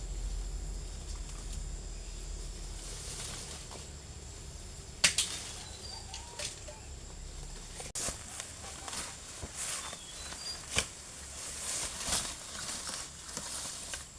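Irregular sharp snaps and knocks, the loudest about five seconds in, with a few faint high chirps like birdsong between them.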